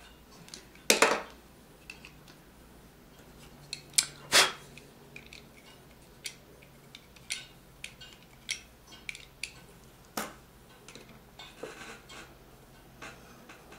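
Irregular light clicks and taps of a plastic graphics card fan and an X-Acto knife being handled while a service hole is carved into the fan's hub. Louder knocks come about a second in, twice around four seconds and once near ten seconds.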